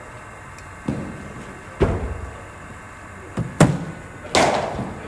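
About five sharp knocks and thuds of a hard cricket ball: the ball bouncing on the artificial-turf matting and being struck by the cricket bat. The loudest knock comes near the end and rings on in the hall.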